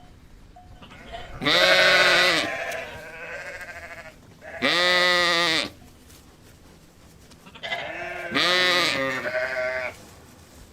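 Bleating of a sheep or goat-type farm animal: three loud, drawn-out bleats a few seconds apart, each rising and then falling in pitch, the last one broken into two parts.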